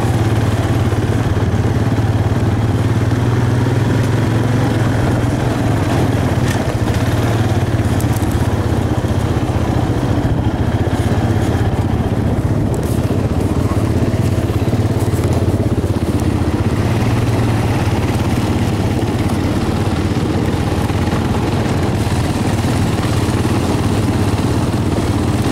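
Four-wheeler ATV engine running steadily with a constant low drone, heard from the seat of the moving ATV.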